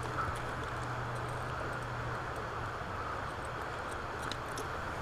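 Steady rush of flowing river water, with a low hum that stops about two seconds in and a few faint clicks near the end.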